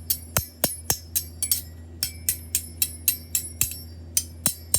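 Two metal forks struck against each other about four times a second, each strike a sharp clink followed by a high ring.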